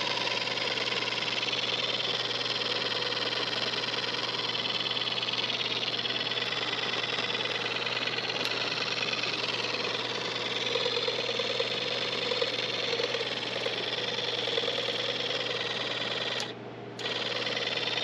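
Small portable air pump for a bait bucket running with a steady mechanical buzz, dropping out briefly about a second before the end.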